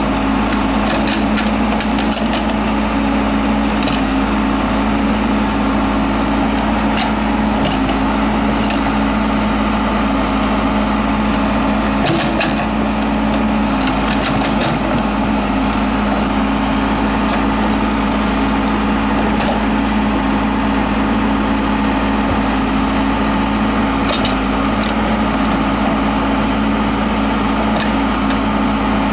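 Case 580L Turbo backhoe loader's turbocharged four-cylinder diesel running steadily at working revs while the backhoe digs, with scattered clanks and knocks from the bucket and boom.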